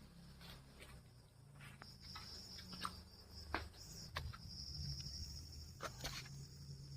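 Faint outdoor ambience: a steady high-pitched insect trill with scattered small clicks and rustles over a low rumble.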